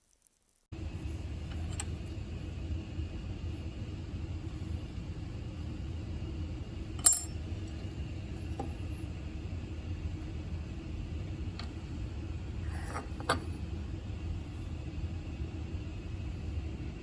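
Steady low hum with a few short metallic clicks and clinks over it, the sharpest about seven seconds in and a small cluster near the end.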